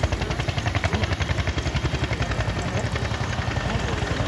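Bell 212 helicopters approaching to land, their two-blade main rotors beating in a rapid, steady rhythm over the turbine noise.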